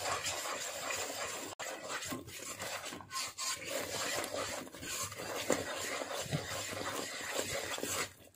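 Wooden spatula stirring and scraping a thick, bubbling 7-cup cake batter of gram flour, sugar, coconut and ghee around a heavy pan: a steady rasping scrape with a few brief breaks. The batter is being worked until it thickens and stops sticking to the pan.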